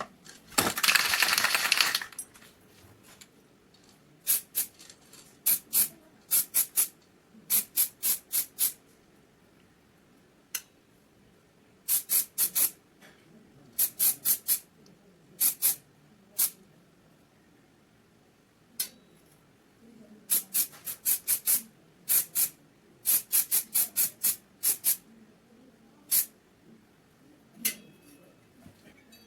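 A hissing spray burst of almost two seconds, followed by clusters of short, sharp clicks or squirts, three to six in quick succession, repeating every second or two.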